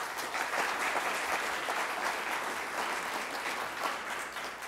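Audience applauding, a dense patter of clapping that begins to die away near the end.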